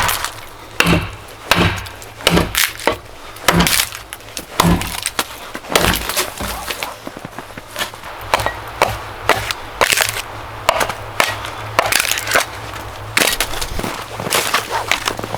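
Dry wood breaking and splintering: an irregular series of sharp cracks, one or two a second, over a faint steady low hum.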